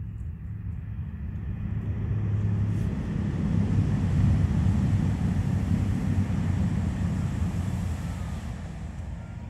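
Low rumble of a passing engine, swelling to its loudest about four seconds in and then fading away.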